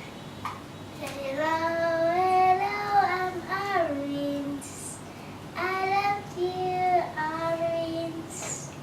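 A child singing two short phrases of a tune, with long held notes and a pause of about a second between them.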